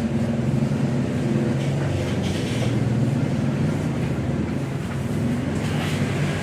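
A motor or engine running steadily, a low hum that swells slightly and then eases toward the end.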